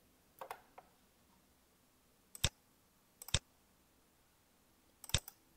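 Three sharp computer mouse clicks, each a quick pair of ticks, spaced unevenly over a few seconds against quiet room tone.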